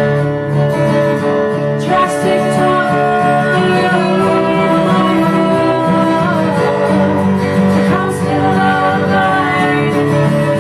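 Bowed cello and acoustic guitar playing together, with a woman singing over them.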